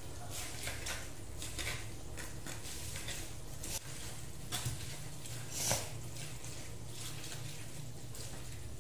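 A spoon scraping and clinking in a bowl as shredded corn is mixed, in short, soft strokes. A steady low hum runs underneath.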